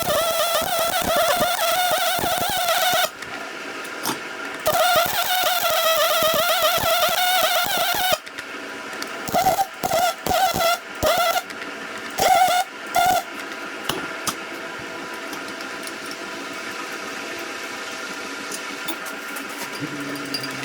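Electric welding arc buzzing and crackling, with a wavering buzz: two long beads, then several short bursts about half a second apart, like tacks or stitch welds, between about 9 and 13 seconds in. After that only a fainter steady hum is left.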